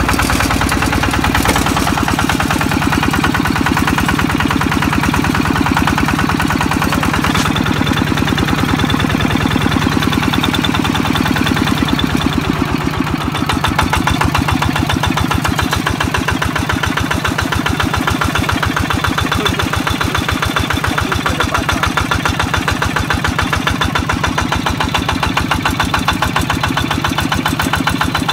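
Small rice harvester's Kubota engine running steadily, with a fast, even beat, as the machine threshes.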